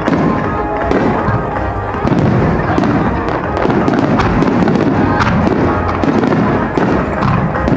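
Fireworks launching and bursting in quick succession, a rapid run of bangs and crackles from a starmine barrage, with music playing underneath.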